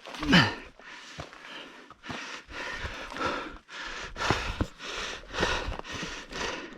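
A climber breathing hard from exertion: quick, heavy breaths about two a second, with a short falling groan right at the start.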